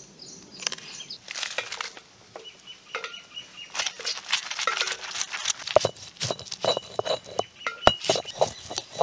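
Stone roller of an ammi grinding stone rolling over and crushing dried red chillies: an irregular run of scraping, crunching knocks, stone on stone.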